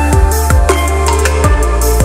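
Background electronic music with a heavy, sustained bass, a melodic synth line and a steady drum beat.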